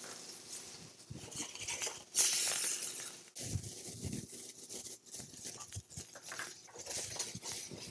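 Diced onions tipped into a hot cast iron skillet of browning beef, mushrooms and carrots, sizzling, with a louder rush of sizzle about two seconds in. Light pattering and clicks of the pieces landing in the pan.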